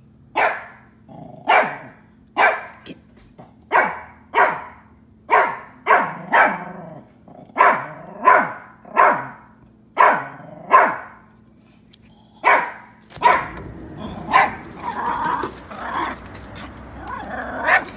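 A Pomeranian barking at a hawk: a long run of short, sharp barks, one or two a second. A steady noisy hiss runs under the barks over the last few seconds.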